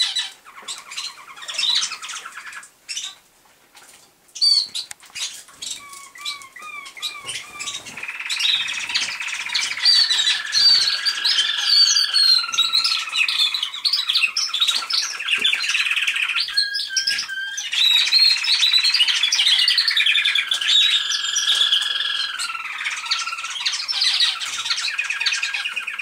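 Male American Singer canary singing: scattered chirps and short note series at first, then from about eight seconds in a long, continuous song of rapid trills and falling glides.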